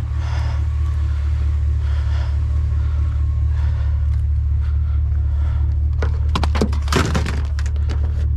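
A steady low rumble like an idling vehicle engine, with a burst of clattering knocks about six to seven seconds in.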